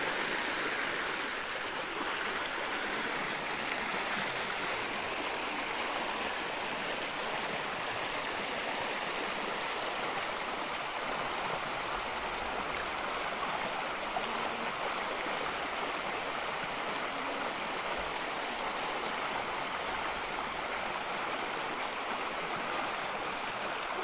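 Steady rush of a stream cascading over smooth rock slabs into a pool, an even running-water sound with no splashes.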